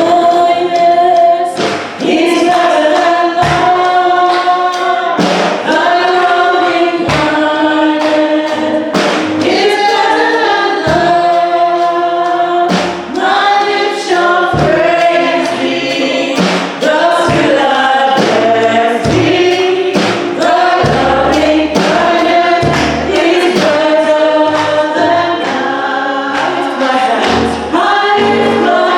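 Gospel choir singing with a steady beat.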